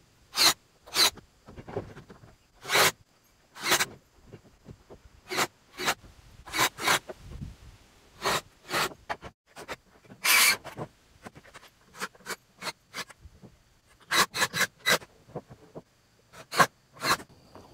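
Irregular series of short knocks and scrapes from hands-on work on the barn's roof framing, about one every second, with a quick run of several together near the end.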